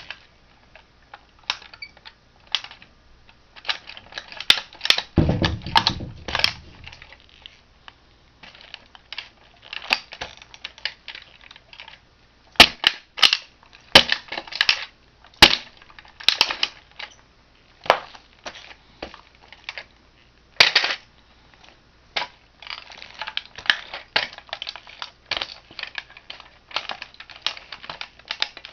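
Toy Mustang car being crushed under a shoe: irregular sharp cracks, snaps and crunches of breaking plastic. A heavier, deeper crunching stretch comes about five seconds in.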